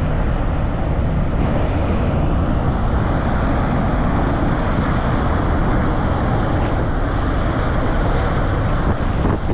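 Mount Bromo's active crater vent rumbling steadily as steam and gas pour out: a continuous roar like a jet engine starting up.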